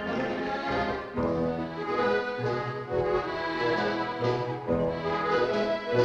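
Orchestral dance music with a moving bass line, heard on an old, dull-sounding 1930s film soundtrack.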